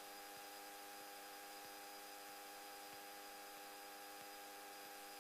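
Near silence on the radio audio between transmissions, with only a faint steady electrical hum.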